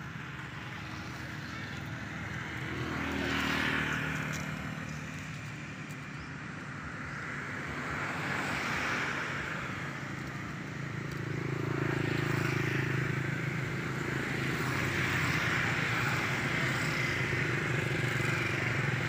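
Traffic noise from passing motor vehicles, swelling and fading: one pass a few seconds in, another near the middle, then a longer, louder stretch through the second half.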